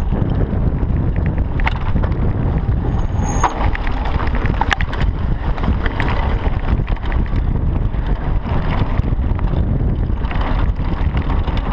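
Mountain bike ridden fast down a loose, rocky trail: a steady rumble of wind on a chest-mounted camera's microphone, with the tyres crunching over stones and the bike rattling in frequent sharp clicks and knocks.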